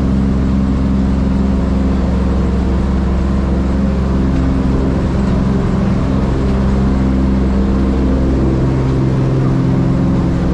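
Vintage transport plane's piston engines droning steadily, heard inside the bare metal cabin: a loud, constant hum with several even tones.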